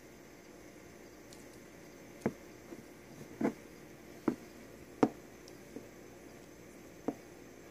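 Handling noise: about six short, sharp clicks and knocks at irregular intervals, over a faint steady hiss.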